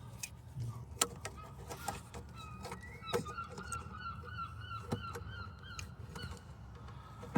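Birds calling in a rapid run of short, repeated honks, about three a second, starting a couple of seconds in and stopping near the end, with a few sharp clicks and knocks scattered through.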